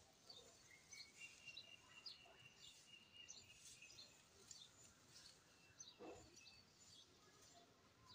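Faint outdoor ambience with distant small birds chirping in short, scattered, high notes, and a thin whistled note held for a couple of seconds near the start. About six seconds in there is one brief, slightly louder low sound.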